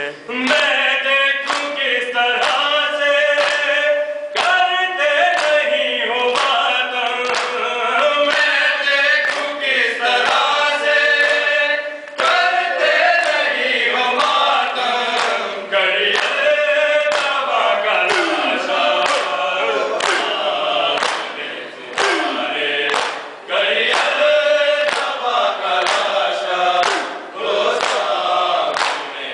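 A group of men recites an Urdu nauha in unison. Matam runs with it: open hands strike the chest about once a second.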